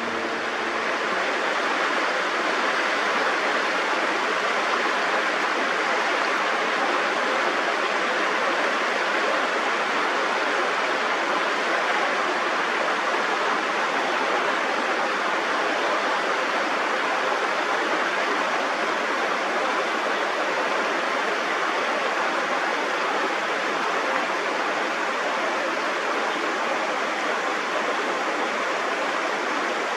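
Steady rushing of flowing water, an even hiss with no breaks or changes in level.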